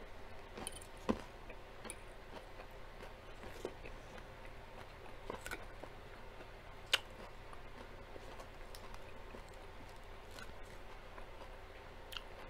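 Quiet close-miked chewing of a salad with the mouth closed, with scattered small clicks and two sharper taps of a fork on the plate, one about a second in and one just past the middle. A low steady hum runs underneath.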